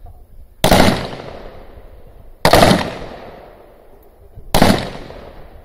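Beryl 5.56 mm assault rifle fired three times in single, aimed shots about two seconds apart. Each shot is a sharp crack followed by a ringing tail that dies away over about a second.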